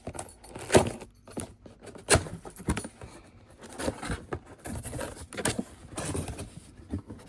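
Cardboard box and packaging being opened and handled: irregular sharp clicks, knocks and scrapes with rustling between them.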